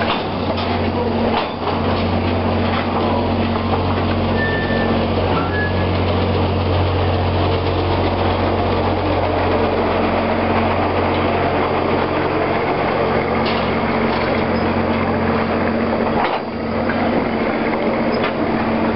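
Train of vintage passenger coaches rolling slowly past at close range: steady rumble of the cars over the track under a constant low engine drone, with a few faint clicks from the wheels.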